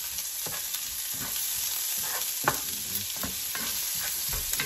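Ginger and garlic sizzling in hot oil in a cast-iron skillet, with a steady hiss and irregular scrapes and taps of the spatula against the pan as they are stirred.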